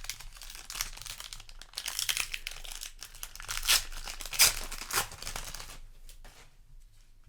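Foil wrapper of a trading-card booster pack being torn open and crinkled, with a run of sharp crackles in the middle; the handling dies down near the end.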